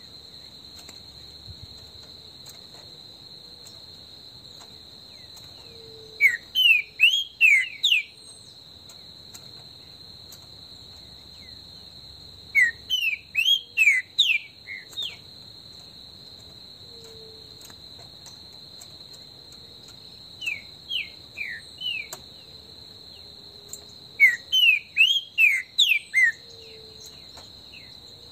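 Green-winged saltator (trinca-ferro) singing: four phrases of quick, rising whistled notes, each about two seconds long and several seconds apart. A steady high-pitched insect drone runs underneath.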